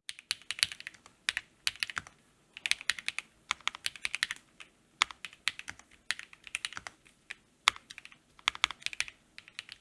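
Typing on an Akko ACR Pro Alice Plus mechanical keyboard, built with lubed KTT Kang White linear switches, a polycarbonate plate in an acrylic case, foam dampening and doubleshot ABS keycaps. The keystrokes click in quick, irregular runs with brief pauses.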